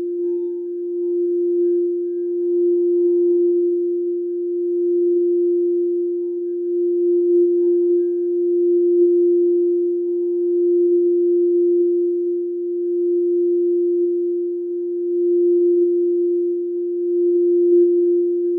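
Quartz crystal singing bowl sounding one sustained, pure tone that swells and fades slowly every two to three seconds.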